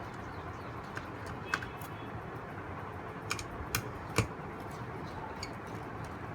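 Scattered small clicks and taps of a screwdriver and screws working on a graphics card's back plate, about six in all, the loudest about four seconds in.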